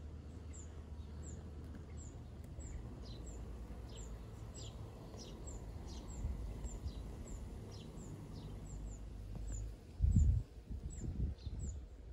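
Birds calling: a short high chirp repeated about twice a second, with a few falling notes in the middle, over a steady low hum. A few loud low rumbles break in near the end.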